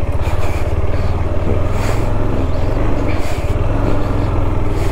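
Motorcycle engine running steadily as the bike is ridden, a low throb, with brief rushes of hiss about two seconds and three seconds in.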